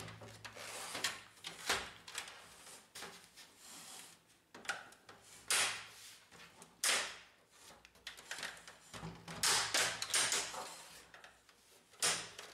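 A series of short plastic clicks and knocks, with scraping between them, from the Brother laser printer's plastic top cover and housing as its hooks are released and the cover is worked free with a screwdriver.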